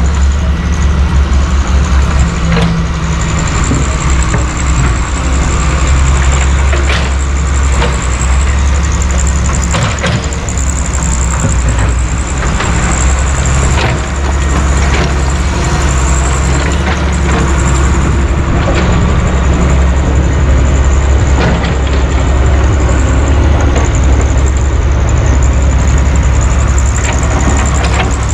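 Heavy diesel engines of a Hitachi excavator and a dump truck running steadily at close range, with occasional sharp knocks scattered through.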